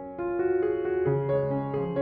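Background piano music: gentle sustained notes changing every half second or so.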